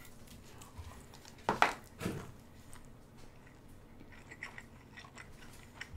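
A man eating spicy instant noodles: two short slurps about a second and a half in, then quiet chewing with faint mouth clicks.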